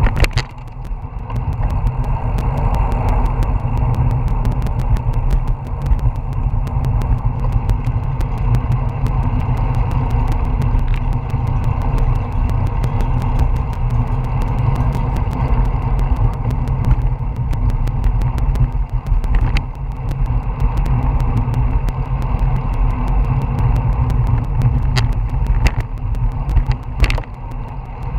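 Wind buffeting the microphone of a bicycle-mounted action camera at road-riding speed: a loud, steady low rumble with road and tyre noise beneath, broken by a few brief clicks.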